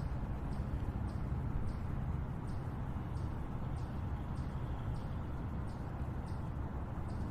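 Steady rainfall with a deep low rumble. Short high chirps or ticks repeat about twice a second above it.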